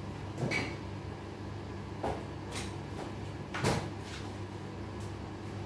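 Wooden kitchen cupboard doors being handled: a few short knocks and clatters, the loudest a little past halfway, over a steady low hum.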